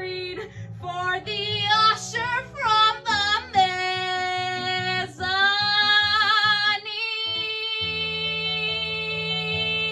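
A woman singing a musical-theatre song over an instrumental accompaniment, finishing with long held notes with vibrato from about four seconds in, and a steadier held tone over low chords after about seven seconds.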